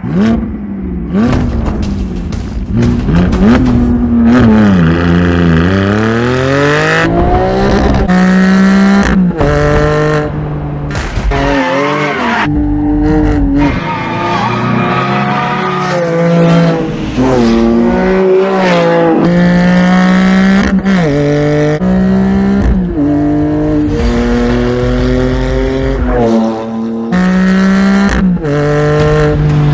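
Porsche 718 Cayman GT4's flat-six engine through an Akrapovic exhaust line and silencer, revving hard up through the gears. Its pitch climbs repeatedly and drops at each shift, with some falling sweeps on the way down, and the sound breaks off abruptly several times between takes.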